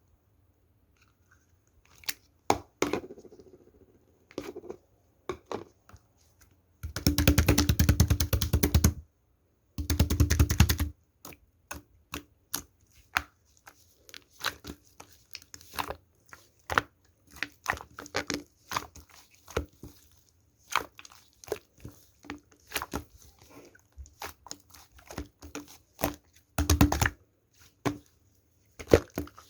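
Slime being handled, squeezed and stretched by hand: a steady scatter of sticky clicks and small pops. About seven seconds in and again about ten seconds in come dense runs of rapid crackling.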